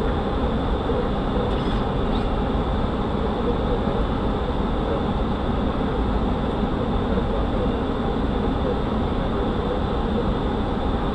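Steady rushing cabin noise on the flight deck of an Airbus A300-600 airliner in descent: airflow and engine noise, with a faint steady high tone over it.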